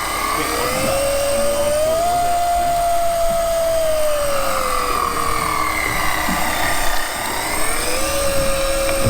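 Electric fishing reel's motor whining as it winds a deep-water fish up from the bottom. Its pitch slowly rises, sags and rises again as the fish pulls against it.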